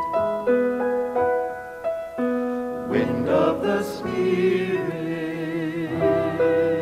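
Piano playing a hymn with a small group of singers. The piano plays single held notes at first; about halfway through the voices come in and hold a line with vibrato, and the piano goes on alone near the end.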